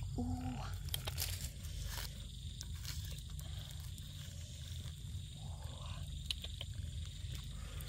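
Wood fire crackling, with scattered sharp pops over a steady low rumble, while embers and ash are scraped aside and a whole buried fish is dragged out of the ground oven.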